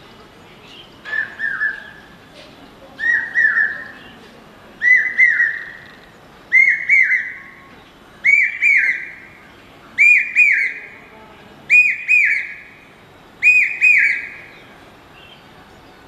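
A common hawk-cuckoo (brainfever bird) gives its shrill three-note 'brain-fever' call. The phrase repeats eight times, every couple of seconds, each one higher and louder than the last, and the series then stops.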